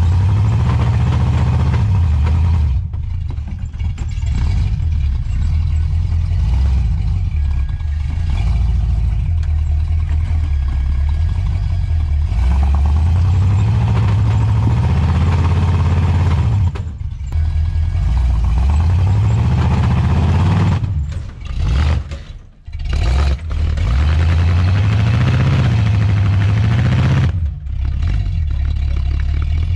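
Old Chevy four-by-four's engine revving up and down under load while crawling over rocks. The throttle drops off briefly several times, most deeply about three-quarters of the way through, then picks up again.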